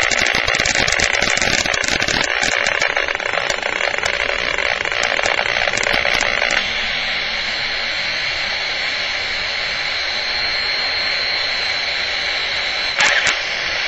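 A handheld RF/microwave detector sounding its alarm in the strong radio-frequency field of a resonant ferrite-core coil, not the ferrite core itself. It gives a harsh crackling buzz full of clicks, which about six and a half seconds in turns into a smoother steady hiss with a faint high tone. A short burst comes near the end.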